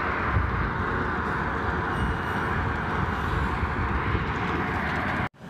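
Steady road and engine noise of a moving vehicle, heard from inside it. The sound cuts off abruptly near the end.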